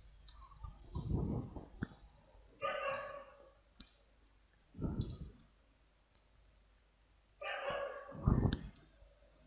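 A few faint, scattered clicks mixed with short rustling noises.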